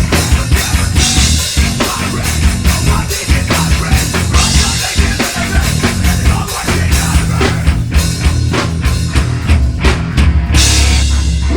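Metal band playing live: fast drum-kit hits with cymbal crashes over bass and guitar, with no vocals. About ten seconds in a cymbal crash lands and a low bass note is held.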